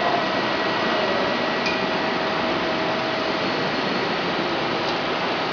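Steady fan-like hum and hiss of running machinery, with a faint held tone through it and two faint clicks about three seconds apart.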